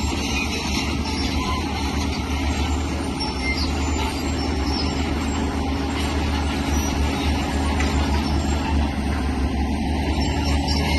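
Diesel engine of heavy earthmoving machinery running steadily, a continuous low drone.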